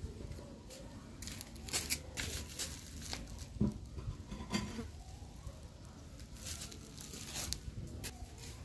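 Handling noises: rustling and scattered light clicks as a ceramic planter is placed on a concrete basin rim, with a soft knock about three and a half seconds in and another a second later.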